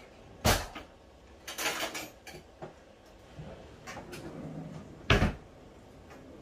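A few sharp knocks and some clatter from handling things in a kitchen, like a cupboard door or containers being knocked and set down. The two loudest knocks come about half a second in and just after five seconds, with a short run of clatter in between.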